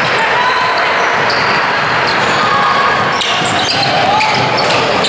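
Basketball game in a gym: a ball bouncing on the hardwood, sneakers squeaking in short sharp chirps, and voices from players and spectators throughout.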